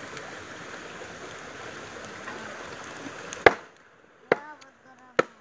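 Knife chopping meat on a wooden board: a steady rushing hiss, then three sharp chops in the last two seconds, the first the loudest.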